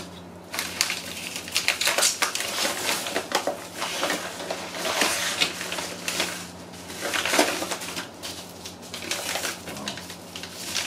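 Padded paper mailer envelopes rustling and crinkling in irregular bursts as they are handled and pulled open, over a steady low hum.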